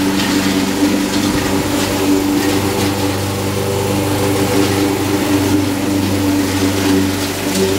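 Honda HR194 push mower's four-stroke engine running steadily under load as it is pushed across the lawn, cutting grass at a very low height.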